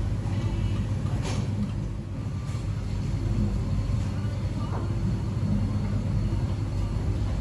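Steady low rumbling background noise, with a faint click about a second in.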